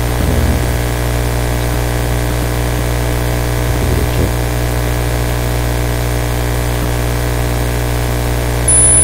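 Steady electrical hum with hiss, a low buzz with many evenly spaced overtones, picked up by the recording microphone. Near the end a high thin whine comes in and the level rises.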